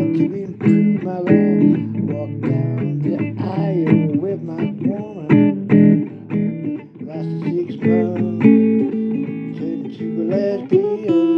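Blues guitar instrumental break: plucked guitar notes, many of them bending or sliding up and down in pitch, over a steady accompaniment.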